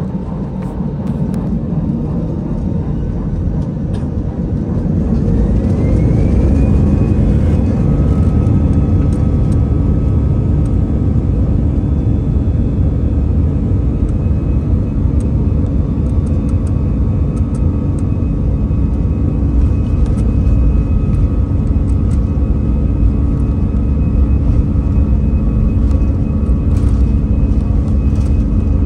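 Airbus A320-214's CFM56-5B turbofan engines spooling up to takeoff thrust, heard from inside the cabin over the wing. A whine rises in pitch about five seconds in and then holds steady, over a loud low rumble of the takeoff roll.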